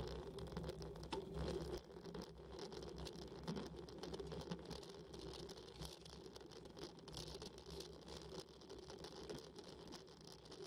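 Bicycle ridden uphill over rough, patched tarmac: faint tyre rumble and a constant light rattle of the bike and its handlebar-mounted camera.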